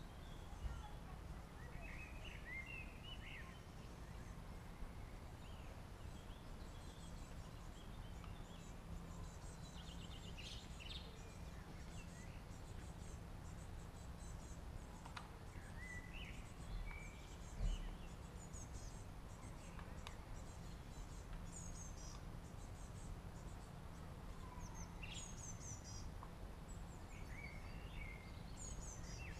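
Small birds chirping and singing on and off over a low, steady background rumble, with one short knock a little past halfway through.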